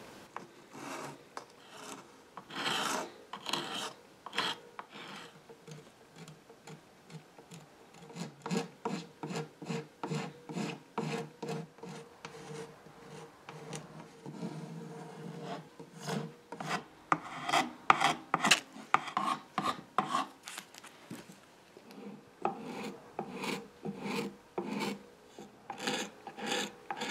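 Shaped hand scraper blade scraping old finish off a wooden molding, a rasping sound in many short strokes that come in quick runs with brief pauses.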